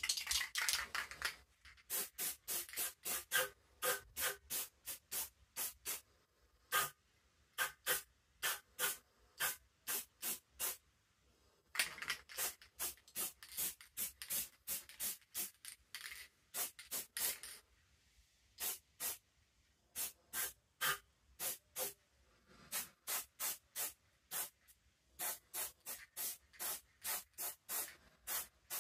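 Aerosol spray paint can sprayed in many short bursts, about two to three a second, in runs with pauses between and a few longer hisses, laying a fresh colour coat onto a primed bicycle frame.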